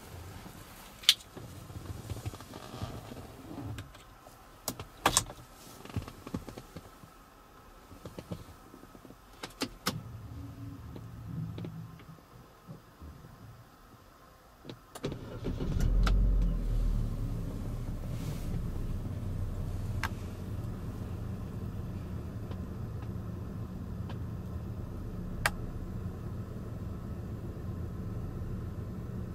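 Opel Mokka's engine starting about halfway through, its revs flaring briefly, then settling into a steady idle, heard from inside the cabin. Before it starts, scattered clicks and knocks.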